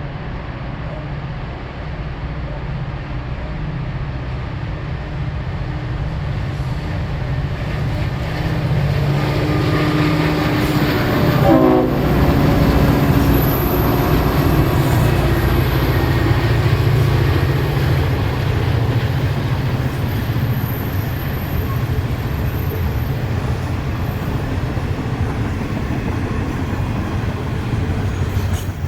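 EMD diesel-electric freight locomotives passing under power with a low, growing engine rumble. The horn sounds about ten seconds in, its pitch dropping as the locomotive goes by, followed by the steady rumble and clatter of wagons on the rails.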